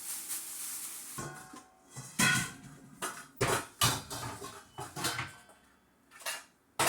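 Kitchenware being handled: an irregular run of sharp clanks and knocks, some with a brief metallic ring, as a strainer or colander is fetched and set down. A brief rushing hiss fills the first second.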